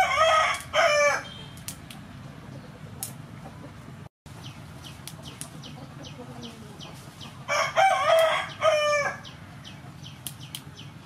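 A rooster crowing twice, once at the start and again about eight seconds in, each crow a run of several notes lasting about a second and a half. In between come light, crisp snaps of yard-long beans being broken by hand.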